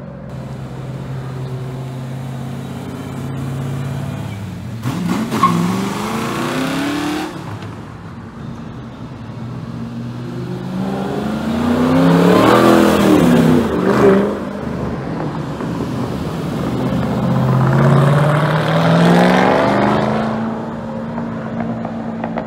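Ford Mustangs driving past one after another, each exhaust note climbing and then dropping in pitch as the car goes by. Three passes are heard: a few seconds in, a louder one near the middle with some revving, and another about three-quarters through.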